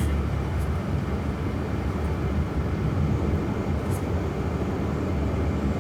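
Steady low road and tyre rumble inside the cabin of an electric Jaguar I-Pace cruising at about 38 mph.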